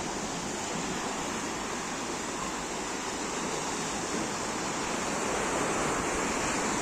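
Sea waves breaking and washing in: a steady rush of surf that swells a little near the end.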